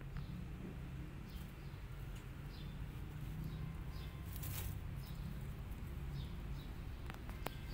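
Small birds chirping in short, high, falling notes, repeated about once or twice a second, over a low steady rumble. A sharp click comes near the end.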